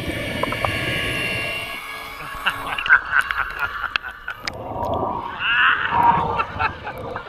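Swimming-pool water sloshing and bubbling around a waterproof camera as it dips under the surface, comes up and goes half under again, with scattered small clicks and a louder stretch of splashing near the end.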